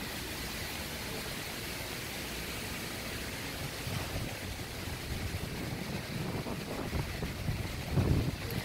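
Wind blowing across an open ship deck, a steady rushing hiss. From about halfway through, gusts buffet the phone's microphone with low rumbling thumps, strongest near the end.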